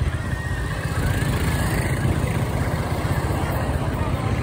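Small motorcycle engine running steadily with a low, even throb, heard from on the bike itself.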